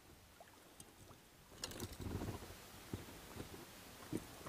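A small fish swung out of the water onto a bass boat's carpeted deck: a rustle and splash about a second and a half in, then a few dull thumps as it flops on the deck.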